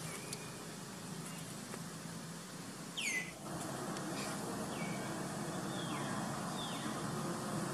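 A high chirping call that falls sharply in pitch about three seconds in, followed by a few fainter falling chirps, over a steady background hum.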